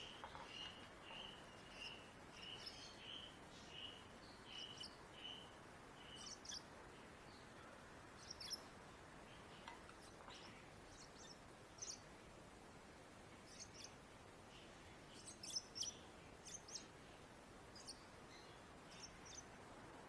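Faint begging peeps of a hand-fed parakeet chick, a quick repeated peep about twice a second for the first six seconds, then scattered short high chirps and small clicks while it takes formula from a feeding spoon.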